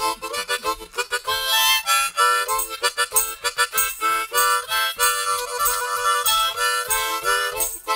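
Instrumental opening of a song: a wind instrument plays a quick melody over a regular rhythmic beat.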